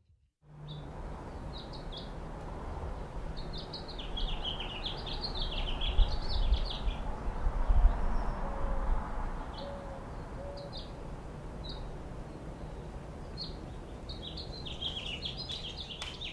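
Small birds chirping and twittering in quick runs of high notes over a steady outdoor ambience, with a few low rumbles about six and eight seconds in.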